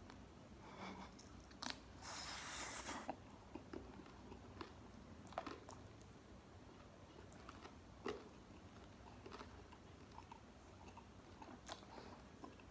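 Close-up eating sounds of crispy McDonald's fried chicken being chewed: quiet chewing with scattered sharp crunchy clicks, and one louder, noisier crunch lasting about a second, starting about two seconds in.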